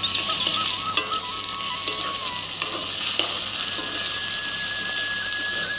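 Small potatoes, onions and ginger-garlic paste sizzling in hot oil in a wok, stirred with a metal spatula that clicks and scrapes against the pan now and then.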